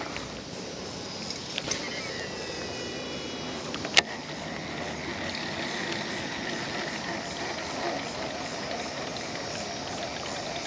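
Baitcasting reel cast and retrieve with a buzz bait: a faint whine as line pays out, then a sharp click about four seconds in, then a steady low whirr as the reel is cranked.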